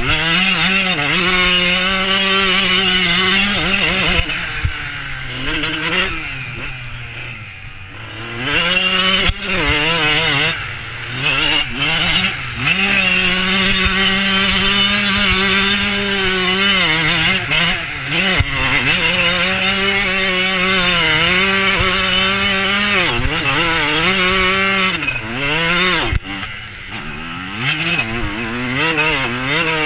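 Dirt bike engine heard from a helmet-mounted camera, revving up and down as the rider works the throttle. Several times it drops back off the throttle, the longest about five to eight seconds in, then picks up again.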